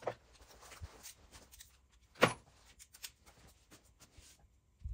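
Torque wrench and socket being worked on the crankcase nuts of a Yamaha RD250 engine: a few sharp metallic clicks, the loudest about two seconds in, with lighter clicks and taps between them.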